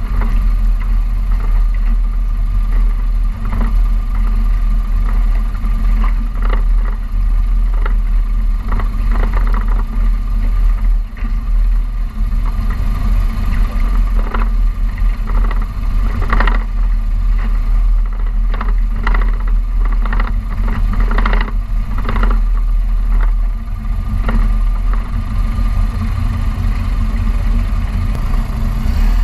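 Light aircraft taxiing on a grass airstrip: a steady engine drone with heavy low rumble on the microphone, broken by many irregular knocks and rattles, thickest in the middle.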